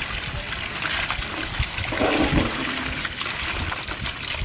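Water running from a hose and splashing onto cut tilapia pieces in a woven bamboo basket as they are washed by hand.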